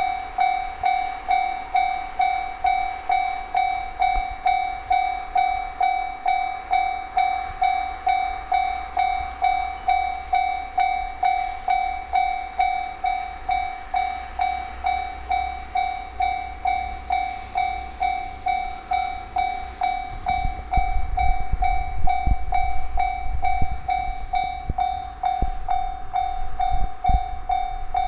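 Japanese railway level-crossing alarm ringing in an even electronic ding-ding, about two strikes a second. From about twenty seconds in, a train passes over the crossing with a low rumble and wheel clacks over the rail joints.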